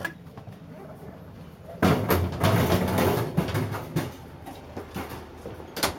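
Close rustling and rubbing noise from a hand-held camera stick as it is carried along, loudest from about two seconds in to about four seconds, with scattered knocks and one sharp click near the end.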